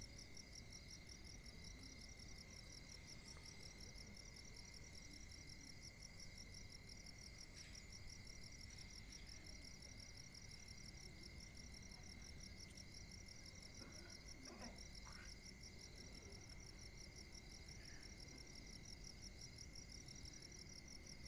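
Near silence: faint room tone under a steady, rapid, high-pitched pulsing trill, like an insect's, and a faint steady high tone.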